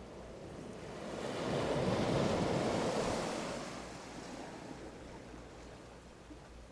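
A single wave breaking and washing up the beach: a rush of surf that swells about a second in, peaks, and dies away again by about four seconds.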